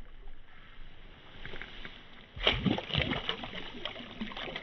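A released smallmouth bass hits the river with a sudden loud splash about two and a half seconds in. It keeps splashing and thrashing at the surface after that.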